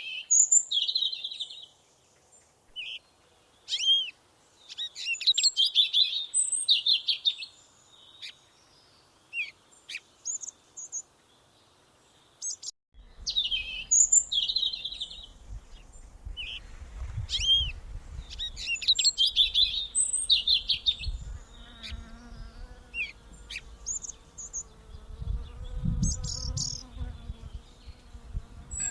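Small songbirds chirping and twittering in quick repeated phrases, with short trills and rising-falling notes. After a brief break about halfway, a low rumble runs under the birdsong, and faint wavering tones join in the last third.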